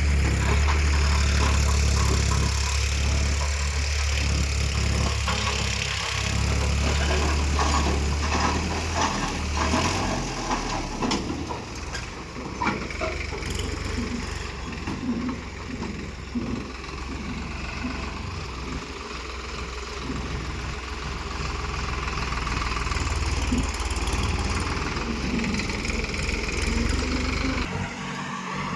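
Heavy diesel machinery engine running, a strong steady drone for the first several seconds that then drops away into a lower, uneven running sound with scattered clanks and knocks.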